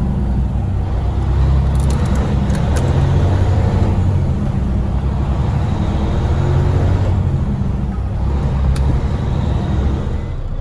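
Semi truck's diesel engine running steadily, heard from inside the cab, with a few light clicks near the start and again near the end.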